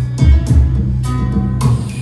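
Band music: a drum kit beat over a held bass note, with guitar.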